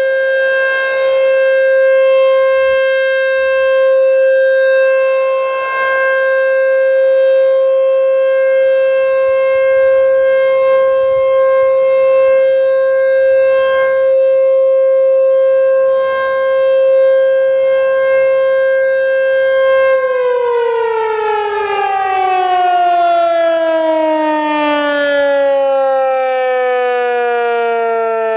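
American Signal T-128 rotating electronic siren sounding its steady alert tone. About two-thirds of the way through, the pitch starts falling steadily as the siren winds down.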